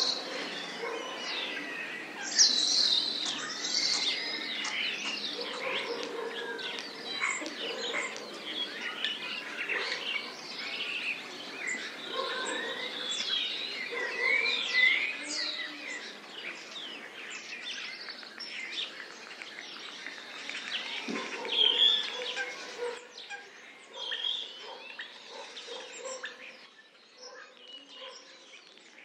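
Many songbirds singing at once, a dense chorus of overlapping chirps and whistles that thins and fades out near the end.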